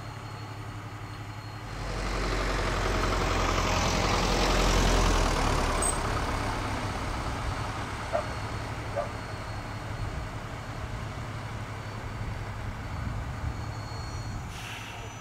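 Large diesel emergency vehicle idling with a steady low hum. A louder swell of engine noise builds about two seconds in, peaks around five seconds and fades back to the idle.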